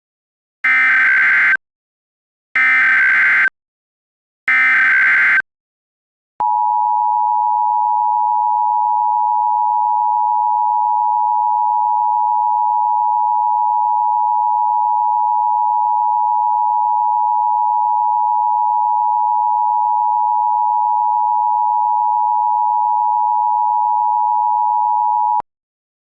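Emergency Alert System signalling: three one-second bursts of SAME header data tones, about two seconds apart, then the EAS two-tone attention signal (853 and 960 Hz together) held steady for about 19 seconds and cut off sharply. Together they open a new alert.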